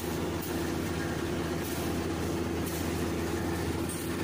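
Rice harvester's engine running steadily, an even low hum with no change in speed.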